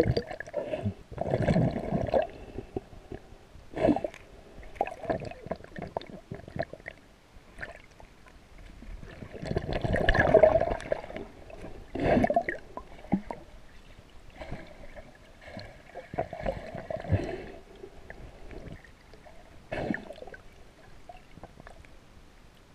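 Muffled water sounds heard through a camera's underwater housing: irregular gurgling and sloshing surges as the camera moves through shallow sea water, loudest about ten seconds in and dying down near the end.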